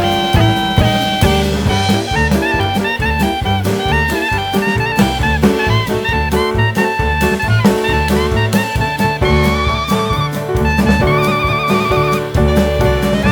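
Background music: an upbeat jazz tune with saxophone or brass melody over bass and a steady drum-kit beat.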